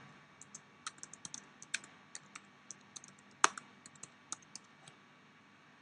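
Typing on a computer keyboard: a quick, uneven run of key clicks, one noticeably louder about three and a half seconds in. The typing stops for the last second or so.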